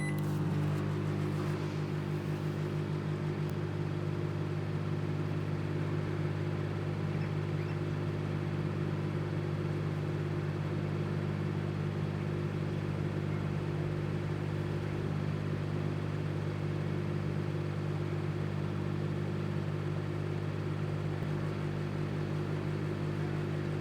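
Microwave oven running with a steady low hum, its magnetron heating a bar of soap; the hum stops at the end of the cycle.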